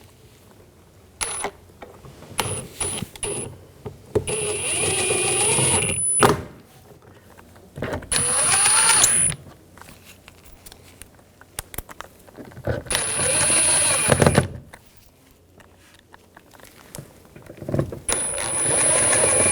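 Small cordless power driver running four times in short bursts of a second or two, each a motor whine rising slightly in pitch, as it runs the door-panel screws down snug; light clicks of handling between runs.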